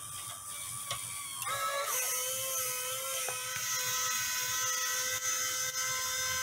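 Small electric motor whining steadily as it turns a screw jack through Meccano gearing, raising the model's retractable roof, with light mechanical rattle. Its tone changes about a second and a half in.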